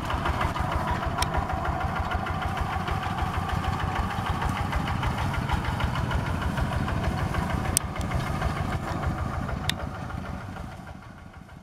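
Two-wheel hand tractor's single-cylinder diesel engine running with a fast, even chugging beat as the tractor is walked across a field, with a few sharp clicks. The sound fades out near the end.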